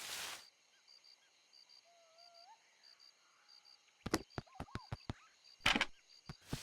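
Faint cartoon jungle ambience: evenly repeating insect-like chirps and a few soft bird twitters. A short swish comes right at the start, a quick run of light taps about four seconds in, and two more taps near the end.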